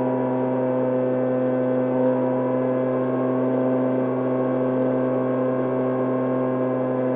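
Electric motor and pusher propeller of an E-flite Opterra flying wing humming steadily at cruise, heard from the onboard camera: a low even drone with a faint wavering whine above it.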